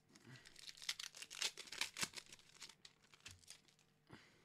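Foil booster-pack wrapper being torn open and crinkled by hand: a run of quick crackling rips lasting about two and a half seconds, loudest in the middle, then a single soft tap near the end.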